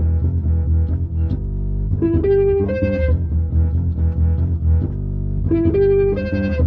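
Bass guitar and guitar playing a repeating riff: a low, held bass line under a rising three-note figure that comes round about every three and a half seconds.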